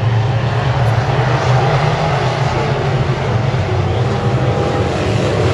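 Dirt-track race car engine running hard at a steady pitch, with a dense rushing noise over it.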